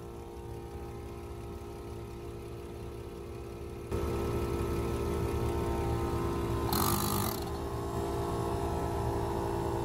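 A steady mechanical hum of running machinery, which becomes abruptly louder about four seconds in, with a short hiss near seven seconds.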